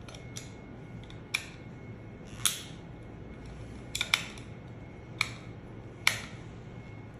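Sharp clicks and taps of hard plastic, about six of them spread out, as the plastic housing of a battery-powered soap dispenser is unscrewed and taken apart by hand.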